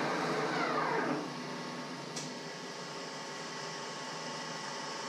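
Metal lathe winding down after being switched off, its whine falling in pitch over about the first second, then a steady low hum with a light click about two seconds in.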